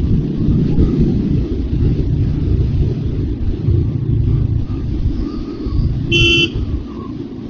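Royal Enfield Hunter 350's single-cylinder engine running steadily under way, with a low rumble. About six seconds in, a vehicle horn sounds once, briefly.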